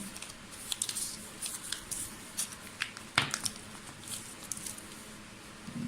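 Small hand-handling noises from a smartwatch and its charger and packaging: scattered light clicks and rustles, with one sharper click about three seconds in.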